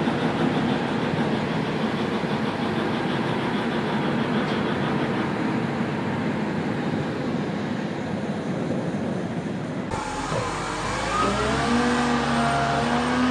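Diesel engines of large Komatsu mining haul trucks running as the trucks drive past, a dense steady rumble. About ten seconds in it cuts abruptly to a Liebherr 586 wheel loader's diesel engine working, its pitch rising and falling as it pushes a large stone block.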